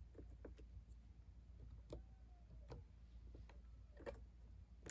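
Faint, irregular clicks of keys being pressed one at a time on a Brother P-touch label maker's keyboard.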